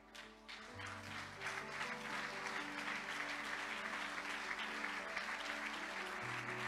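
Congregation applauding, building up over the first second or two and then holding steady, over soft held keyboard chords that change every few seconds.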